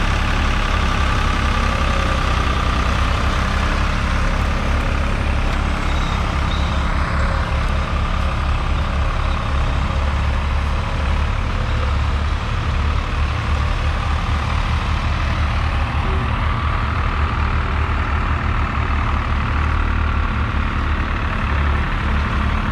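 John Deere 820's three-cylinder 2.5-litre diesel engine running steadily as the tractor pulls a two-furrow mounted plough, a continuous low rumble.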